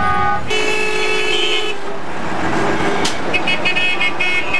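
Vehicle horns honking in heavy city traffic: one long horn blast about half a second in, then a rapid string of short toots near the end, over the running of bus and car engines.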